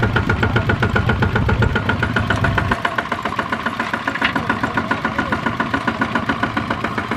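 Two-wheel walking tractor's single-cylinder diesel engine running with a rapid, even firing beat; about three seconds in its deep low end drops away and it carries on at a lighter idle.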